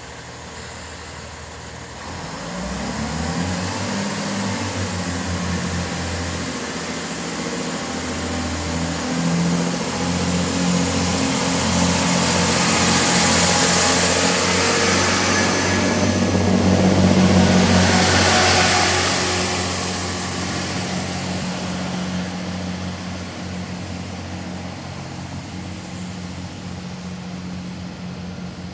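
Class 165 diesel multiple unit pulling away from a station stop: its underfloor diesel engines open up about two seconds in with a rising note, then run on steadily as the train accelerates. A hiss of wheel and rail noise swells as the carriages pass close by, then fades as the train draws away.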